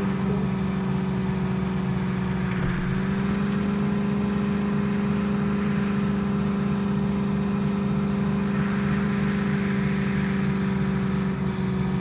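A vehicle engine running at a steady speed, as a constant drone, with a slight rise in pitch about three seconds in.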